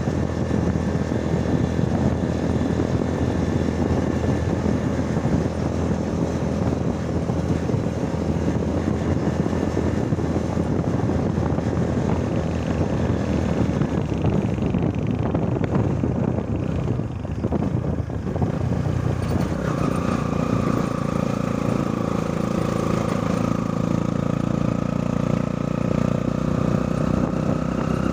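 Motorcycle engine running at road speed, mixed with wind and road noise. A brief dip comes a little past halfway, after which the engine settles into a steadier hum.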